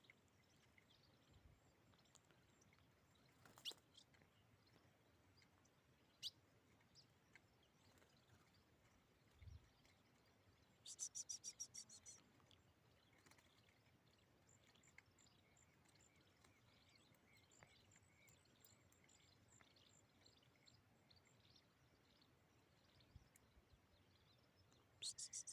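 Faint, sparse chirps from small caged songbirds over quiet background, with a short rapid run of high chirps about eleven seconds in and another near the end.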